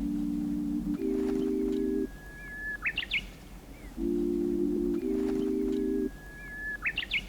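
A short looped musical intro: sustained low chords change about once a second, alternating with a recorded bird call, a long held whistle ending in a quick rising flourish, that repeats identically about every four seconds.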